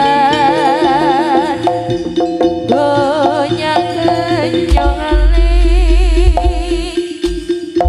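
Live East Javanese jaranan music with drums and a strongly wavering melody line over a steady drone. A deep low note is held for about two seconds past the middle.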